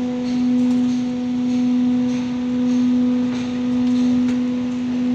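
Steady low machine hum on one pitch with its overtones, swelling and fading gently about every second and a quarter, with a few faint ticks over it.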